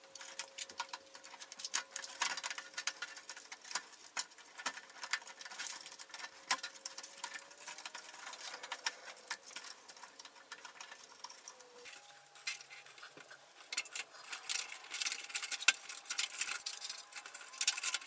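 Sped-up time-lapse sound of a laptop being reassembled by hand: a dense run of rapid small clicks, taps and scrapes from plastic and metal parts, cables and tools, over a faint steady tone that steps higher about twelve seconds in. The clicking gets busier over the last few seconds.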